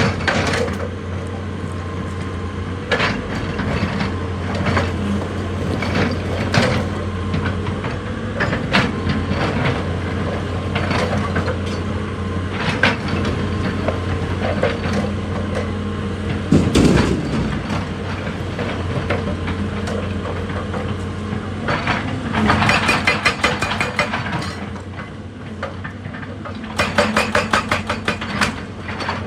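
Excavator's diesel engine running steadily while rock knocks and scrapes against the bucket, with a sharp knock every second or two. Two bursts of fast rattling clatter, each lasting a couple of seconds, come near the end.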